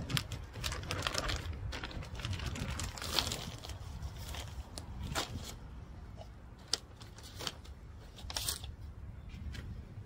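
Plastic bag of potting mix crinkling and crunching as the mix is poured out and the bag handled, a scatter of sharp crackles of varying loudness. A low wind rumble on the microphone lies underneath.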